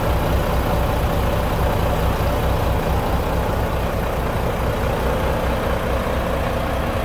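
Volvo B11R coach's 11-litre straight-six diesel engine idling steadily, heard close to its exhaust tips: an even low throb with no revving.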